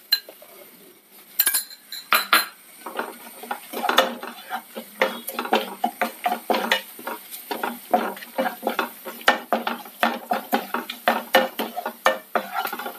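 Wooden spatula scraping and knocking against a nonstick frying pan as a thick chilli-coriander masala is stirred and sautéed on a low flame, in quick repeated strokes of about two or three a second.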